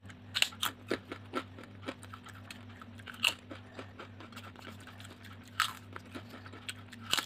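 Chips being bitten and chewed close to the microphone: irregular crisp crunches, the loudest about three and five and a half seconds in, over a faint steady low hum.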